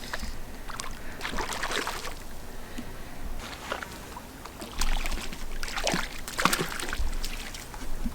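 Water splashing and sloshing in irregular bursts, a hooked cutthroat trout thrashing at the surface as it is brought in.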